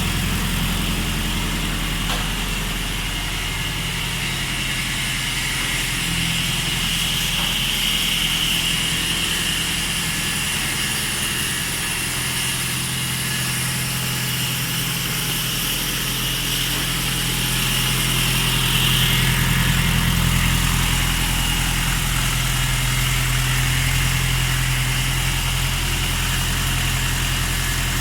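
Kubota farm tractor's diesel engine running steadily at idle, swelling a little in level about two-thirds of the way through.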